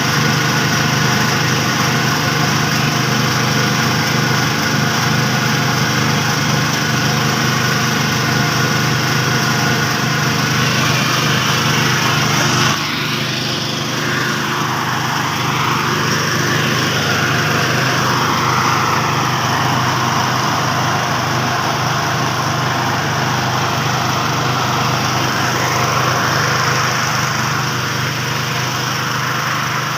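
Rice threshing machine running steadily, its small engine holding an even speed with a constant hum. About halfway through the sound dips slightly and its upper tones begin to sweep slowly up and down.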